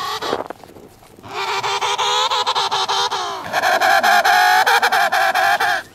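Emperor penguin calling with its head bowed to its chest: a long, wavering, many-toned call that breaks off just after the start, then after a short pause a two-second call that runs straight into a louder, higher one that stops abruptly near the end.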